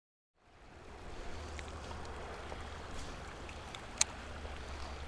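Steady rush of flowing creek water under a low rumble, fading in after a brief moment of silence, with a single sharp click about four seconds in.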